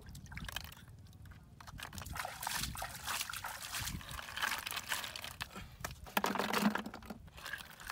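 Hands scooping freshwater snails out of wet mud, with squelching, trickling and sloshing water. Small clicks of shells run through it, and about six seconds in there is a louder clatter as a handful goes into a plastic bucket.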